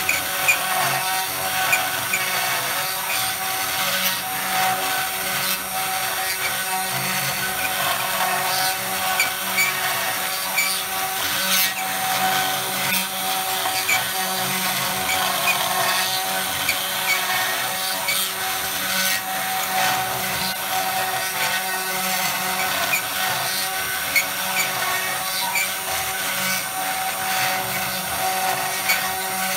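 Hobby CNC router's spindle running with a steady whine while its end mill carves grooves into a painted wooden board, with light scattered ticks from the cut.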